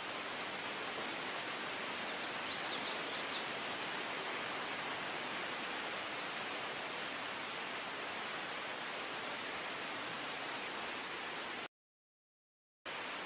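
Steady rush of flowing water, with a brief high bird twitter a couple of seconds in. The sound cuts out completely for about a second near the end.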